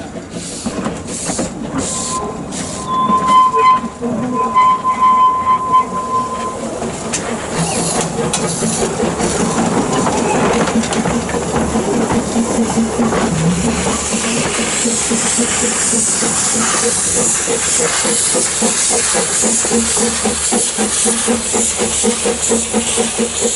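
Narrow-gauge steam locomotive gives two whistle blasts, then steam hiss builds and it works along with a fast rhythmic beat of exhaust and wheels.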